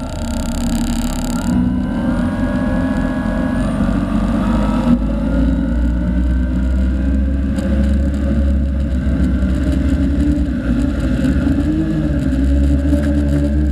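Electric motors of a Tarot 680 Pro hexacopter running with a steady hum and a whine that shifts in pitch as the throttle changes. The craft lifts off near the end.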